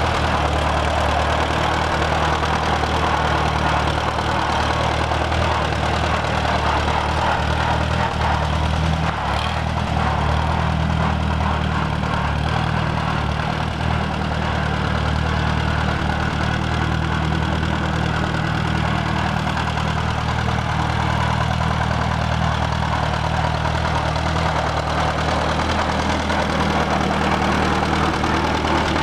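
1938 Allis-Chalmers B tractor's four-cylinder engine running steadily as the tractor is driven around.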